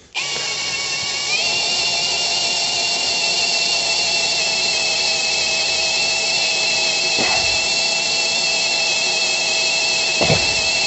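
Cordless drill running a 13 mm bit into a boiler's metal flue pipe: a steady whine that starts at once and steps up in pitch about a second in, with two short clicks in the second half.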